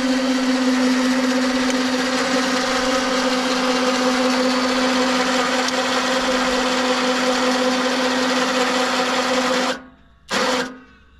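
Warn 2000 electric winch motor whining steadily as it reels in its wire cable, cutting off suddenly about ten seconds in as the hook reaches the fairlead, followed by one brief burst of the motor.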